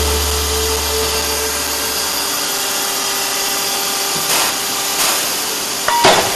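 Industrial metal-cutting circular saw machine running, a steady whine and hiss with a held tone, with a brief sharp squeal near the end.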